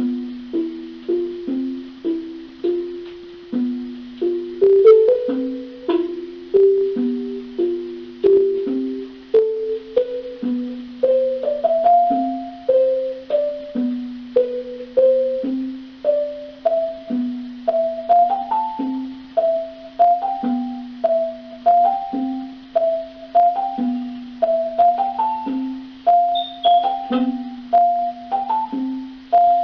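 Slow instrumental music of single notes that each ring and fade. A low note repeats about once a second under a simple melody that climbs gradually higher through the passage.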